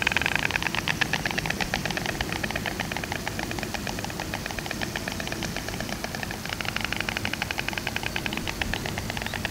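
White storks bill-clattering: rapid rattles of the bill snapping shut, about ten strokes a second, from several birds at once. The rattle is weaker in the middle, and a louder bout starts about two-thirds of the way in.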